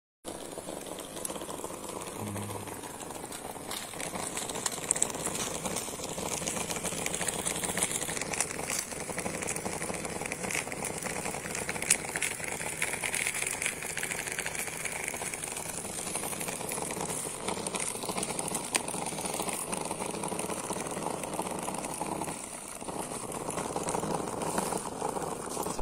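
Small electric motor running steadily inside a homemade cardboard machine, with a continuous fine rattle.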